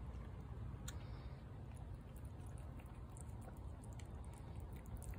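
Cat eating chicken from a plate: faint chewing clicks now and then over a steady low rumble.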